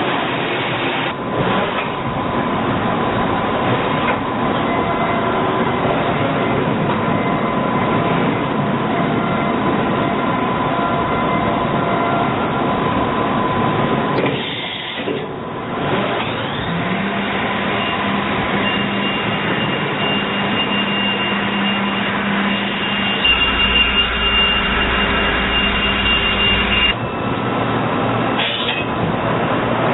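Doosan NHP 4000 horizontal machining centre running: a steady mechanical noise with a high whine held through it. The noise dips briefly near the middle, and a lower hum comes in about halfway.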